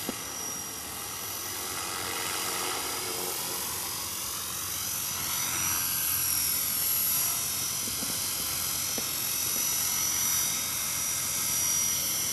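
Art Tech Falcon 3D electric RC helicopter in flight: its brushless outrunner motor whines steadily over the rotor noise, the pitch drifting slowly up and down.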